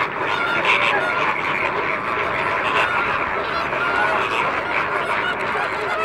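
A large flock of greater flamingos calling all at once: a steady, dense chatter of many overlapping short calls with no pause.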